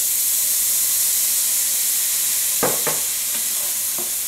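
Fried rice with sausage sizzling in a hot pot, just splashed with fish sauce: a steady high hiss. A few knocks of a wooden spoon against the pot come in from about two and a half seconds in as the rice is stirred.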